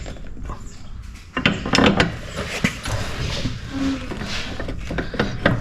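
Metal clanks, knocks and scrapes of a motorcycle's rear wheel, spacers and axle being handled and worked into line, starting about a second in.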